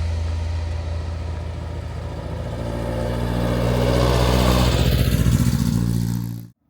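A vehicle engine running, growing louder over the middle seconds, then cut off suddenly near the end.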